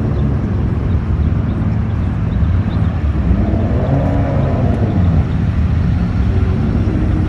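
Low, steady rumble of car engines as cars drive past at low speed, with one engine's pitch rising and then falling once, about three to five seconds in.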